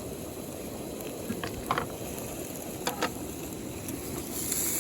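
Food sizzling on a hot camp griddle, a steady crackle, with a few short clicks about two and three seconds in.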